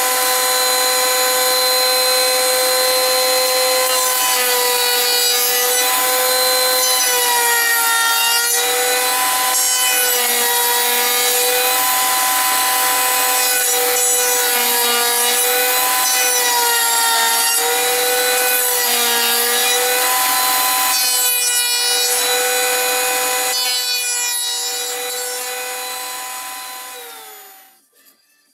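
High-speed router spindle milling wood, a steady high whine whose pitch dips briefly every second or two as the cutter takes load. It fades out near the end, its pitch falling as it does.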